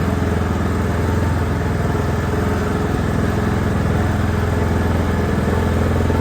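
Riding lawnmower engine running at a steady speed, its firing pulses even throughout.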